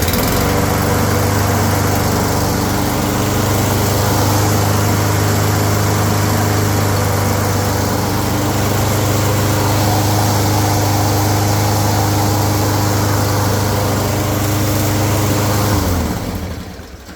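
Toro 22-inch Recycler mower's small engine running steadily, and no grinding comes from the wheel drive now that a washer that was stuck in the drive gear has been removed. The engine shuts off about sixteen seconds in and winds down.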